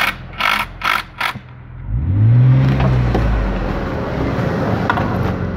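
BMW E36 M3's straight-six engine idling through a newly installed aftermarket exhaust, with a few short scuffing noises in the first second. About two seconds in, a single throttle blip rises and falls, and the engine then settles back to a steady idle.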